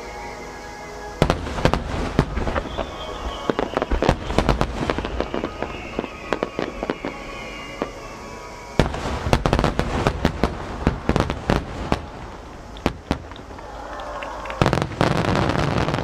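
Large fireworks shells, 12-inch (size-10) aerial shells, bursting in dense volleys of sharp bangs. The bangs come in three waves: about a second in, near nine seconds, and near fifteen seconds.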